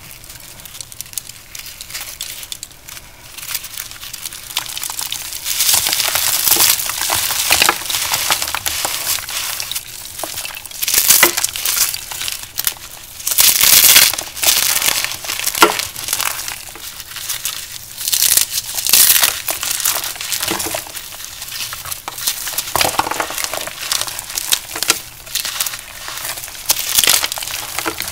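Brittle blocks of pressed powder crunching and crumbling as they are crushed. Faint fine crackles at first, then dense crunching in uneven bursts from about five seconds in.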